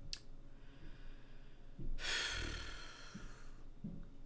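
A man's long sigh, a breathy exhale about two seconds in lasting over a second, with faint breathing before it.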